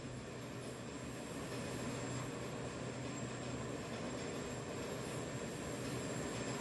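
Automatic disposable dental-mask making machine running steadily: a continuous mechanical clatter and hum, with a faint high whine.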